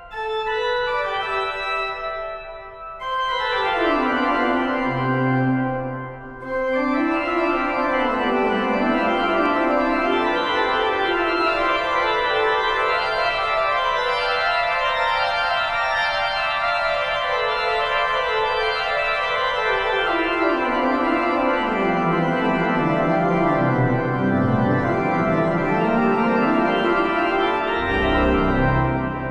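Pipe organ playing many-voiced music, with two brief breaks in the first seven seconds and the sound fading at the end.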